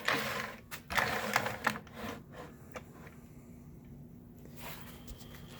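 Wooden drill press fence with flip stops being handled: a run of light clicks, knocks and rubbing, busiest in the first two and a half seconds, then only a few faint clicks.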